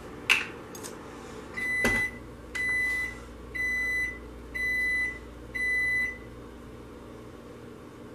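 An appliance's electronic beeper sounding five even, high beeps, each about half a second long and about a second apart, with a couple of sharp clicks just before.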